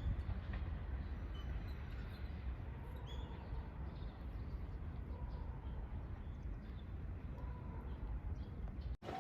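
Outdoor ambience beside a railway line: a low, uneven rumble with a few faint bird chirps and no train yet.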